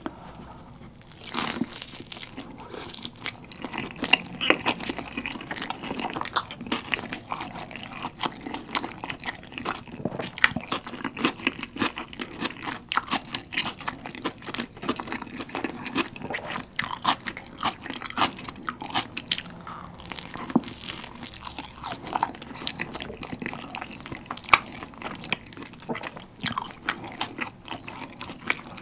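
A man bites into a slice of ricotta-cheese and tandoori-chicken pizza about a second and a half in, then chews it, a steady run of close mouth clicks and crunches.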